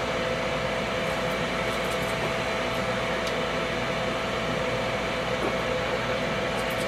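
Steady electric fan hum with a few faint light clicks.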